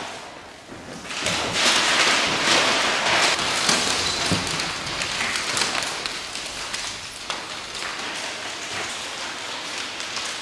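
Several people rustling, shuffling and crumpling many sheets of paper on a hard floor: a dense crackle that starts about a second in, is loudest over the next few seconds, then carries on more softly.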